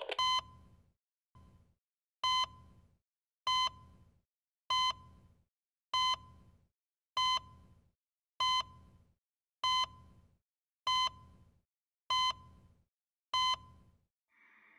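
Repeating electronic beep, one short beep about every second and a quarter, each with a dull low thud under it, a dozen in all.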